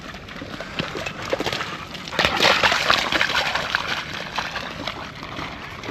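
A Doberman running through shallow water, its legs splashing and sloshing in quick irregular splashes that are loudest and busiest about two to three seconds in, then ease off.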